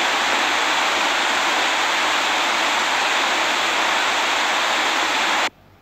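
Steady, loud rushing hiss with no rhythm or pitch, which cuts off suddenly near the end.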